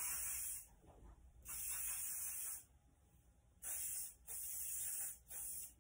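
Milkshake Lifestyling hairspray sprayed onto hair in five short hissing bursts, each lasting about half a second to a second, with short pauses between them.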